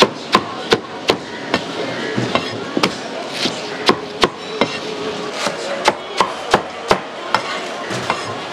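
Chinese cleaver chopping cabbage on a thick wooden chopping block: sharp knocks at about two a second, unevenly spaced, with the crunch of the leaves being cut.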